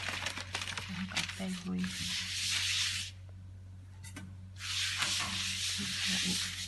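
A hand rubbing across a silicone pastry mat, spreading flour: two long, smooth rubbing passes with a pause of about a second and a half between them, over a steady low hum.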